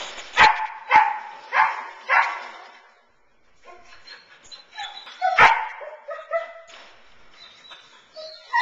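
A dog barks four times in quick succession, about twice a second. After a short pause come softer whining and yelping sounds, with one more loud bark about five seconds in.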